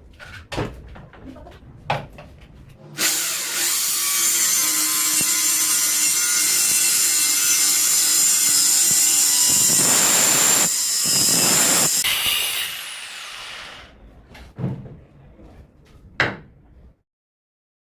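Electric drill driving a saw-type cutting attachment through wood: after a few light handling knocks it starts about three seconds in and runs loud and steady for about nine seconds, then winds down, followed by a few more knocks.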